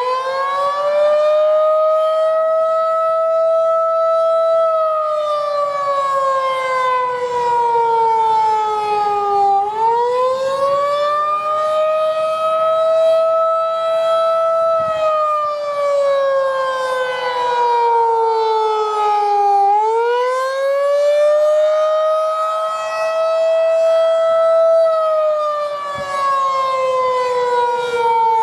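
Federal Signal 2001-DC electromechanical outdoor warning siren sounding a wail. Its single tone rises over about two seconds, holds at the top for a few seconds, then slowly falls, and the cycle repeats about every ten seconds, three times.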